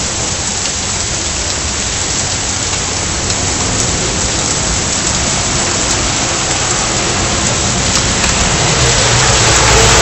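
Heavy downpour on a flooded street: a steady, loud hiss of rain. Near the end a vehicle's engine comes up close and grows louder.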